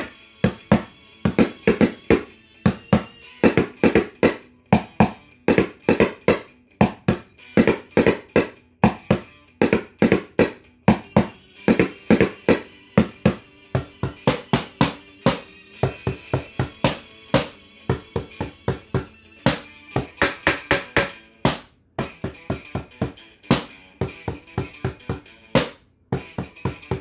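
Kitchen-kit drumming: a metal ladle and spoon beating a quick, steady rhythm on upturned mixing bowls, plastic tubs and a pot, about four strikes a second, with a backing music track playing underneath.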